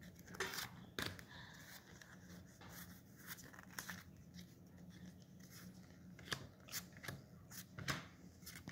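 Pokémon trading cards flicked through one at a time in the hand and laid down: faint, irregular snaps and slides of card stock, about one or two a second.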